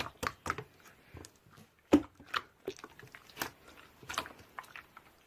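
A run of irregular light clicks and taps, with one sharper click about two seconds in.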